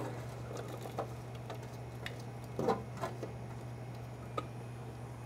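Roasted butternut squash pieces sliding off a metal sheet pan and dropping into a plastic food processor bowl: scattered soft taps and small thuds, the clearest about two and a half seconds in, over a steady low hum.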